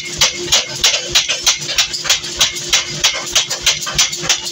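Mechanical power hammer pounding a red-hot steel cleaver blank, in rapid even blows of about five a second over a steady machine hum.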